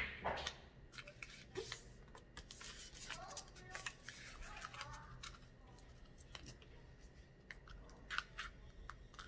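A sheet of paper being folded and pressed flat by hand: faint rustling and crinkling with many small scattered clicks.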